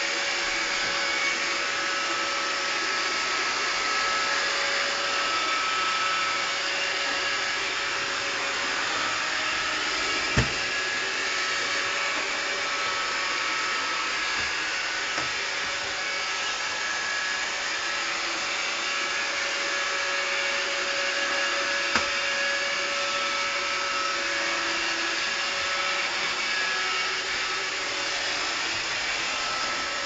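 iRobot Roomba 560 robot vacuum running steadily as it cleans a laminate floor: a continuous motor whir and brush hiss with a faint hum. Two sharp knocks stand out, about a third of the way through and again about two-thirds through.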